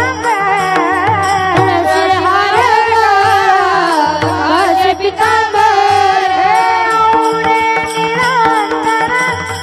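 A woman singing a Marathi devotional panchapadi in Varkari kirtan style, her voice gliding up and down in ornamented phrases, over a steady drone, regular hand-drum strokes and the clicks of small hand cymbals (taal).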